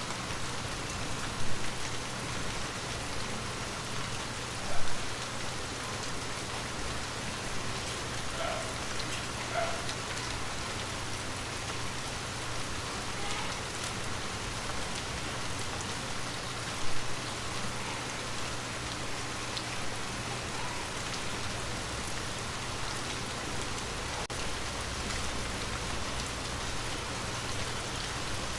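Light, steady rain falling on a window, an even hiss of drops with a few single louder hits standing out, one about five seconds in and one just past the middle.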